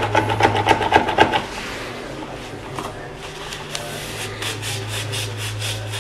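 Cloth wiping briskly back and forth along an arrow, about five strokes a second, easing off about a second and a half in, with lighter wiping strokes again later. A steady low hum runs underneath.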